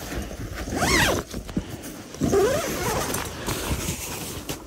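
Zipper of a pop-up ice fishing shelter's door being run open, with the shelter's fabric rustling. Two short voice-like gliding sounds come about a second and about two and a half seconds in.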